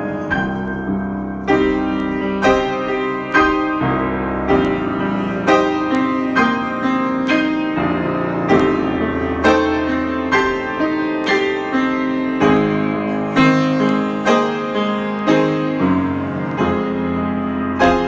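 Solo piano improvisation: chords struck at an even pace of about one a second, each left ringing under the next.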